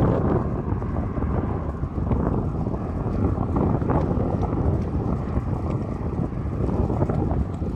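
Wind buffeting the microphone: a steady low rushing rumble with a few faint ticks.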